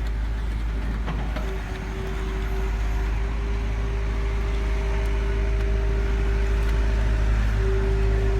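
Small electric motors of a radio-controlled toy excavator running with a steady whine over a low hum. The whine grows stronger about a second and a half in.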